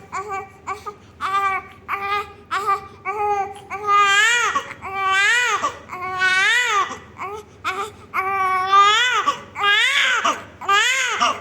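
Newborn baby crying in a chain of short cries, breaking into longer, louder wails about four seconds in.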